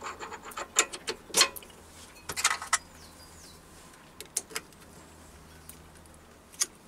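Light metal clicks and taps as a cut-down boring bar is fitted into a lathe boring head and a hex key works the screw that holds it. The clicks are scattered and irregular, most of them in the first three seconds, with a couple more about halfway and one near the end.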